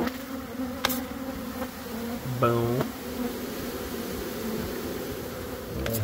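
A mass of agitated honeybees flying out of an opened wall cavity, a steady buzzing hum; the beekeeper suspects the colony is Africanized. A brief hum from a man's voice cuts in about two and a half seconds in, and there are a couple of short clicks.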